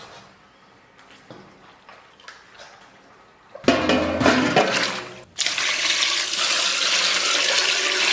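Tap water running hard into a basin over blanched pig intestines as they are rinsed, starting suddenly about three and a half seconds in after a quiet stretch of faint handling clicks, breaking off briefly and then running steadily.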